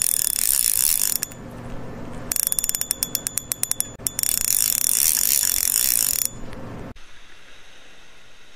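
Intro sound effect over a logo animation: a loud whooshing hiss, a run of rapid ratchet-like clicking for about two seconds, then the hiss again. It drops to a quieter steady background near the end.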